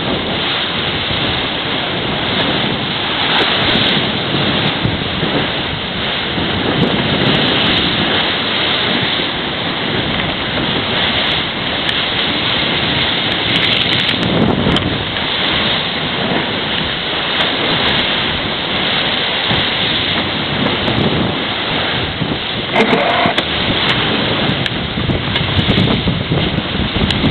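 Wind buffeting the microphone over water rushing along the hull of a racing yacht sailing fast downwind, a loud steady rush that swells and eases in surges.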